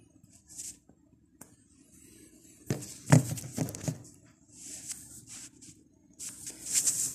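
Handling noise from a phone camera being moved and set in place: a few short rustles and a quick cluster of knocks about three seconds in.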